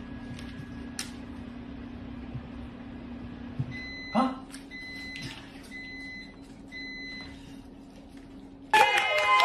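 Four evenly spaced electronic beeps from a household appliance's beeper, each about half a second long, over a steady low hum. Near the end a much louder burst of cheering voices cuts in.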